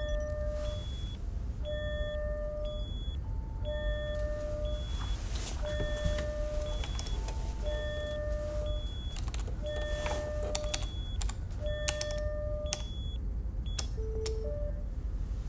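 Control-room computer equipment beeping: a pure electronic tone of about half a second repeats every two seconds over a steady low machine hum. Near the end the beep changes to a lower tone. Several sharp clicks come in the last few seconds.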